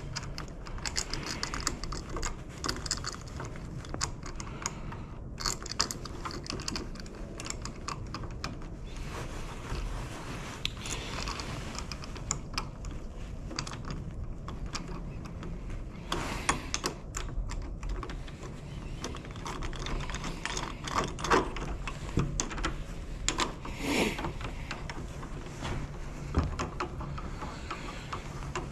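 Door lock hardware and hand tools clicking and rattling in irregular small metal clicks: a locksmith working on a door lock. A brief squeak sounds near the end.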